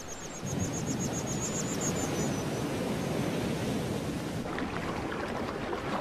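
River water rushing over rapids and small falls in a rocky gorge, a steady dense rush. A fast series of high, even pips runs through the first two seconds, and the water turns more splashy near the end.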